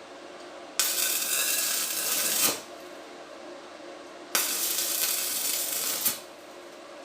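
Two bursts of steady hissing, each just under two seconds long, each starting and stopping abruptly.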